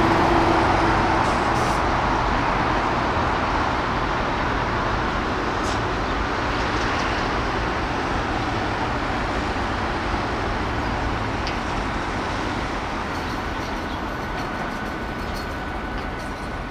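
Road traffic: a passing motor vehicle's engine hum and tyre noise, loudest at the start and slowly fading away.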